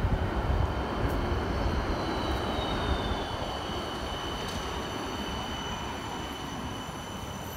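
Helsinki city tram running past on its street tracks: a steady rolling noise with a thin high whine, and a second whine that slides down in pitch about two seconds in.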